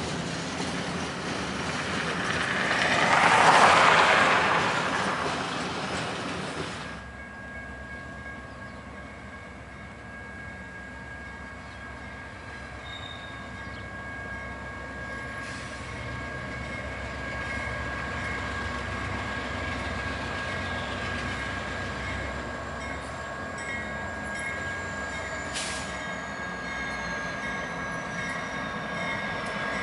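Freight cars rolling past, their wheel noise swelling to a rushing peak about three seconds in. After a sudden change about seven seconds in, a BNSF warbonnet GE C44-9W diesel locomotive approaches slowly: a low engine rumble builds gradually, under a steady high wheel squeal.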